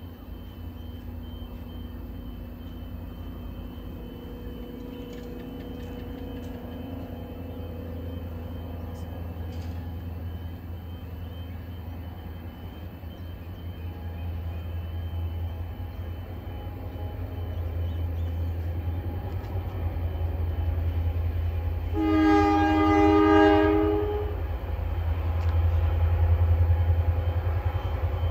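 An approaching diesel locomotive's low engine rumble grows steadily louder, and about three quarters of the way through it sounds one multi-tone air horn blast lasting about two seconds.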